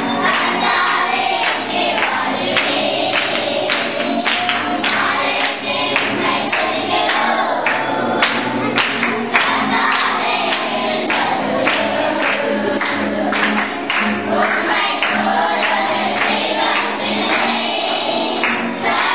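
A group of children and women singing a Christian worship song together, clapping along in a steady beat, with an acoustic guitar accompanying.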